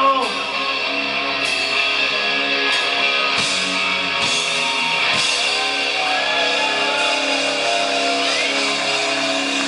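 Live rock band playing, with electric guitar prominent over drums and cymbals.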